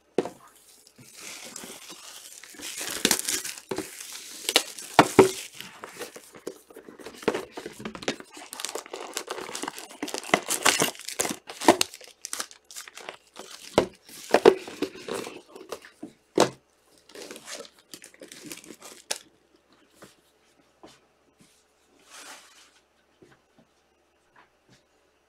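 Plastic wrapping on sealed trading-card hobby boxes being torn and crumpled, with crackling and sharp knocks as the boxes and packs are handled and set down; it thins out to a few faint ticks in the last several seconds.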